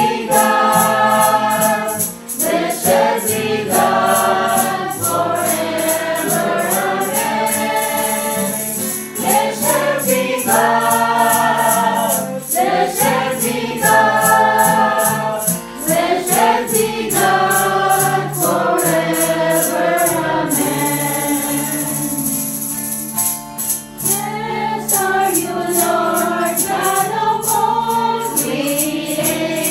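A small mixed choir of men and women singing a religious song together, accompanied by a strummed acoustic guitar, at practice.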